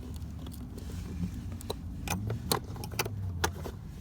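Scattered sharp metallic clicks and small rattles of a pry tool working at a stuck Honda lock cylinder, over a low steady hum.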